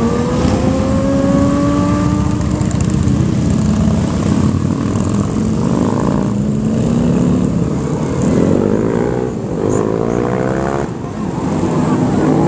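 A string of motorcycles, mostly small dual-sport and dirt bikes, riding past one after another, their engines overlapping and rising and falling in pitch as each goes by. One engine revs up sharply about eight seconds in.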